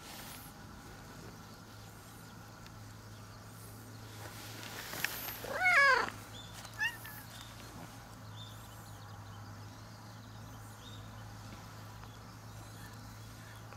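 Cat meowing: one loud meow rising then falling in pitch about halfway through, followed by a short, fainter second meow.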